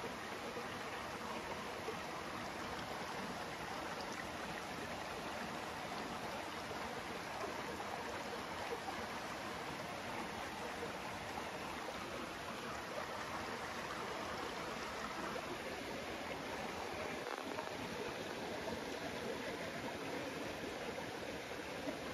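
Steady rush of a flowing stream, an even, unbroken water noise.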